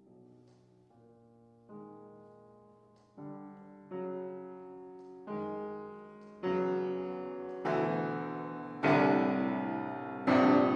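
Grand piano playing a slow series of chords, about one every second and a quarter, each left to ring and each louder and brighter than the one before: a steady crescendo.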